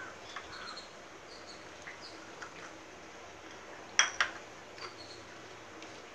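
Quiet stirring of thick fruit custard with a steel spoon in a plastic bowl, with two sharp clicks close together about four seconds in.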